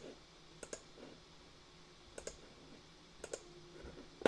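Computer mouse clicking a few times, mostly in quick pairs, as rook parts are dropped one by one into a CAD assembly.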